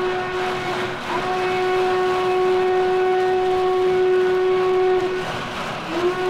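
Steam locomotive whistle blowing over the rumble of the train. There is a brief break about a second in, then one long steady blast that stops about five seconds in. Near the end the whistle sounds again, sliding quickly up to pitch.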